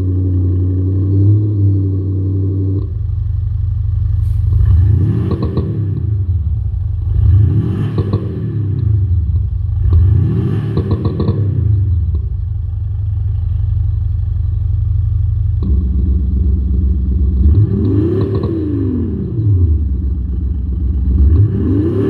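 Audi Q7 TDI revved in short blips while parked, heard through an aftermarket sound module that plays a synthetic V8 exhaust note with misfire pops and crackles. Each blip rises and falls in pitch over about two seconds, with crackling pops around the peak. There are three blips about two and a half seconds apart, a steady idle of several seconds, then two more blips.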